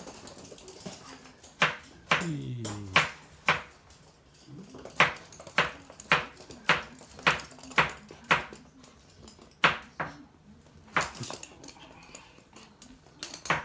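Sharp clicks and taps on a hard floor as two toy poodles move about, about every half second through the middle stretch, with a short falling voice-like sound about two seconds in.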